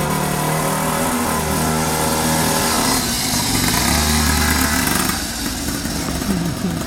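Small engine of a mini pocket bike running under a child rider, its note shifting as he rides off. It drops away about five seconds in as the bike moves away.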